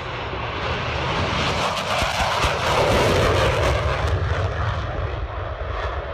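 Jet fighter's engines in a low, fast pass: a roar that builds to its loudest about two to three seconds in, its pitch dropping as the jet goes by, then easing as it climbs away.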